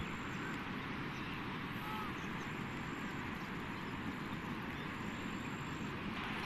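Steady rushing noise of fast-flowing muddy floodwater, an even hiss that does not let up.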